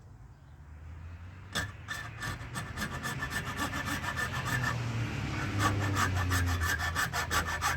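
Small hand saw starting a cut, in quick short back-and-forth strokes, several a second. It begins about a second and a half in and gets louder.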